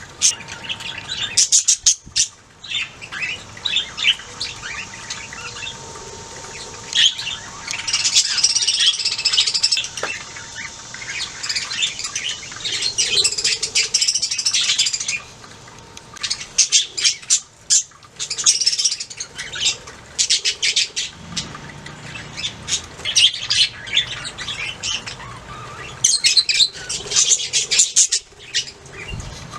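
Budgies chirping and warbling, several birds with many short high chirps and squawks, thickening into dense chatter twice: about seven seconds in, until about fifteen, and again near the end.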